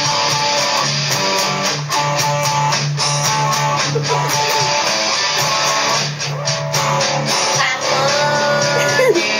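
Electric guitar playing metal music, with a couple of short string bends.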